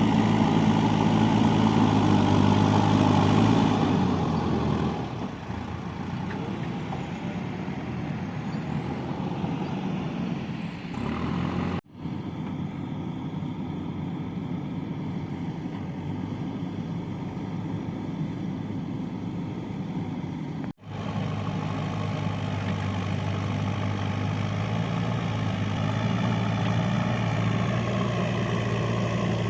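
Diesel engine of a JCB 3DX backhoe loader running, working harder for the first few seconds and then dropping to a lower, steadier note. The sound breaks off abruptly twice, about twelve and twenty-one seconds in.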